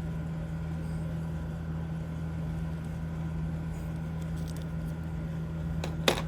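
Steady low hum in the room, with faint small clicks of jewelry being handled and one sharp clink of pieces knocking together near the end.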